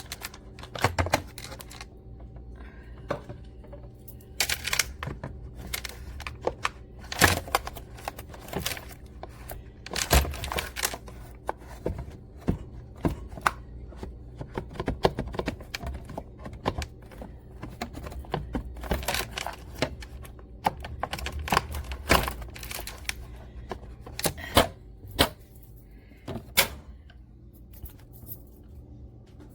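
Irregular clicks, taps and knocks of hard objects being handled, some sharp and loud, over a steady low hum.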